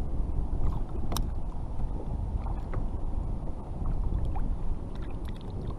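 Wind buffeting the microphone and water lapping against a kayak, a steady low rumble with a few faint clicks, the clearest about a second in.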